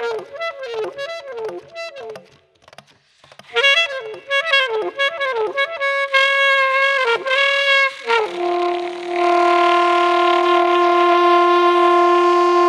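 Improvised solo on a saxophone-like wind instrument: quick short notes that scoop in pitch, a brief pause, two longer notes, then one steady held note from about eight seconds in.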